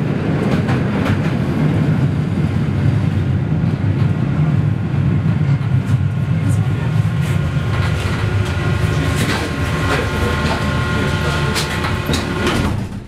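Steady low rumble of a moving public-transport vehicle heard from inside the passenger cabin, with scattered rattles and clicks. A faint whine joins in the second half.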